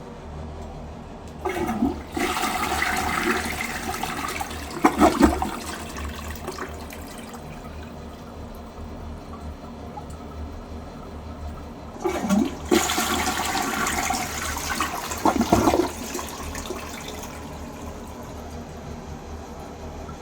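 A toilet flushed twice, about ten seconds apart. Each flush starts with a sudden rush of water, and about three seconds later comes a louder gurgling gulp as the bowl siphons empty. Quieter running water follows each gulp.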